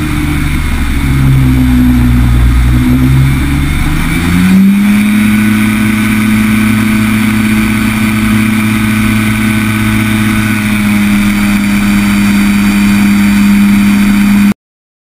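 Ultralight trike's pusher engine and propeller running in flight. About four seconds in the engine note rises and then holds steady at higher power, until it cuts off suddenly near the end.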